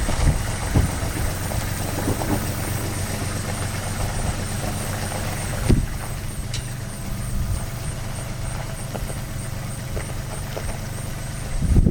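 Vehicle engine running steadily at low revs as it backs up, with a single knock about halfway through.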